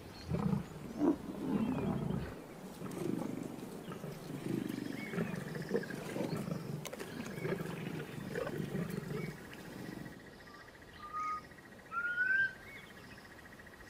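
Lions growling over a freshly killed buffalo calf, in rough, irregular bouts for about nine seconds. Then it goes quieter, and a few short whistled bird calls come near the end.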